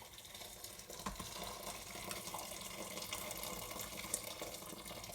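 Water running steadily into the multi-cooker pot, filling it with water to cover the soup ingredients.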